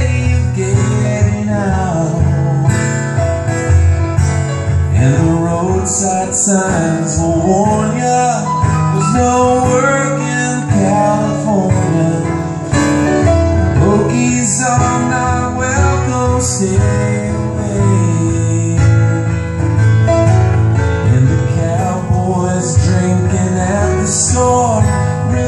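Live acoustic guitar and piano playing a song, with a melodic lead line that glides up and down in pitch over the chords.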